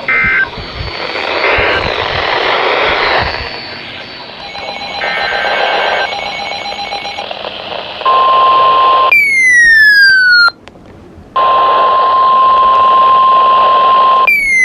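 Emergency alert tones heard over radio static. After a few seconds of hiss with short beeps and a pulsed tone, a loud steady single-pitch alarm tone starts about 8 seconds in. It is cut by a falling electronic sweep, stops briefly, then returns, and another falling sweep begins near the end.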